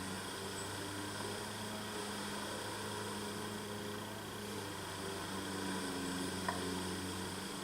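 A steady low hum over faint hiss, with a single short click near the end.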